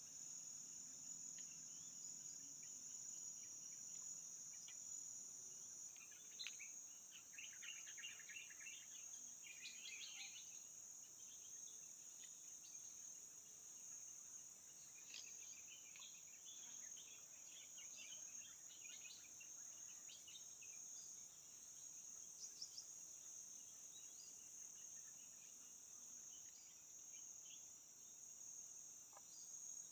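A steady, high-pitched drone of insects, faint overall, with bursts of short chirping calls a few seconds in and again in the middle.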